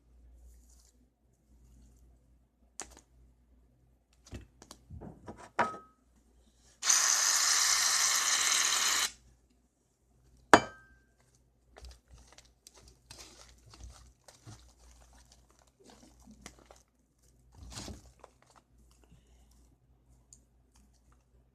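Tabletop handling noises from slime-making: scattered clicks and knocks of containers, a few with a short ringing tone. About seven seconds in comes one steady hiss lasting about two seconds, followed by soft, scattered crackling.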